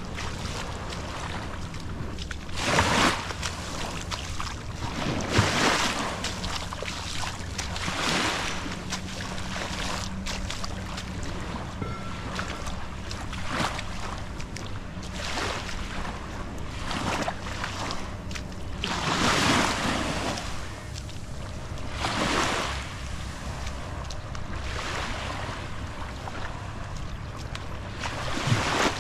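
Small waves lapping and washing onto a sandy shore, a soft swish every one to three seconds, over a low steady hum.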